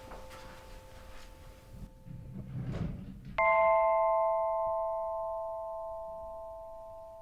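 Film score sound design: a faint held drone, then a swoosh, then about three and a half seconds in a struck bell-like chime that rings on and slowly fades.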